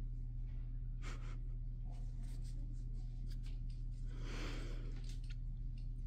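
Steady low hum in a small room, with scattered light clicks and taps and a brief scuffling rustle about four seconds in.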